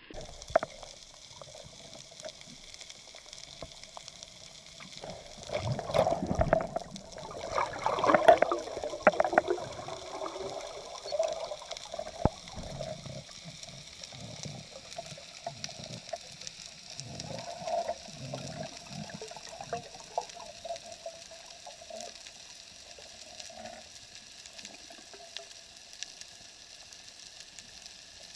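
Underwater sound heard through an action-camera housing: water rushing and gurgling, loudest about 5 to 10 seconds in, over a steady fine crackling.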